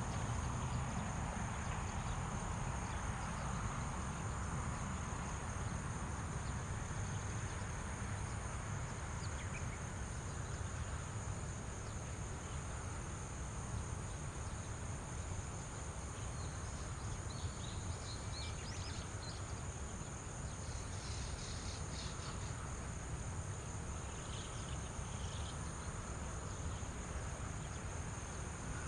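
Insects trilling steadily at a high pitch over a low steady rumble, with a few short high chirps in the second half.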